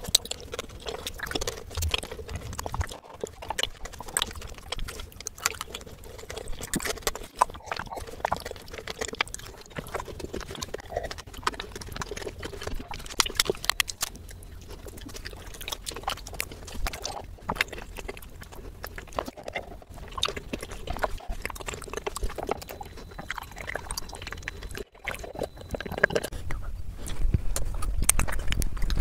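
Close-miked eating sounds: chocolate being bitten and chewed, with many small wet mouth clicks and lip smacks in quick succession. Around the middle, a plastic snack wrapper crinkles as it is torn open.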